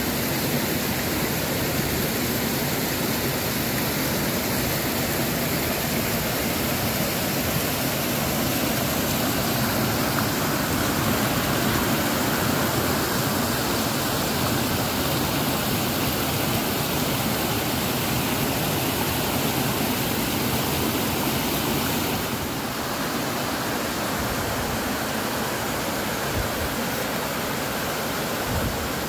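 Mountain stream rushing over rocks in small cascades and waterfalls, a steady wash of water that drops slightly in level about three-quarters of the way through.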